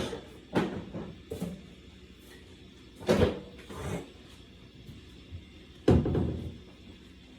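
Kitchen cupboard doors and things being handled: a string of about seven knocks and clunks, the loudest about three seconds in and about six seconds in.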